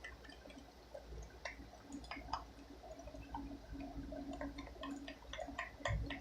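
A pencil stirring liquid soap and baking soda in a small container, with faint, irregular wet clicks and ticks as the mixture thickens into slime.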